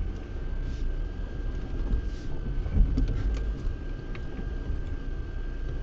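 Lada Niva Bronto off-roader running, heard from inside the cabin: a steady low rumble with a thin, steady high tone over it and a few faint light knocks.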